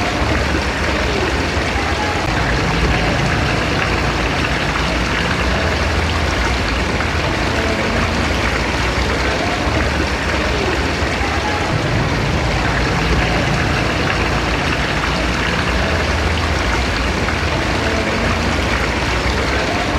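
Tube well water pump running steadily, a low mechanical rumble under the constant rush of water gushing from its outlet.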